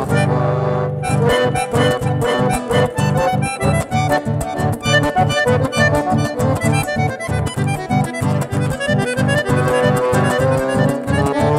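Live chamamé music: a button accordion plays the melody over guitar accompaniment, with a steady rhythmic beat in the low end. A held chord about a second in gives way to the beat again.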